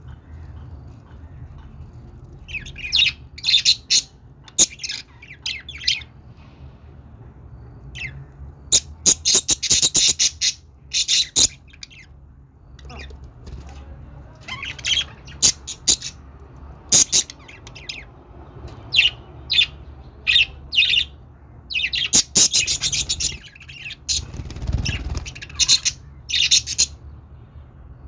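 Budgerigars chirping and chattering in quick runs of high chirps, several bouts with pauses of a second or two between them, over a faint steady low hum.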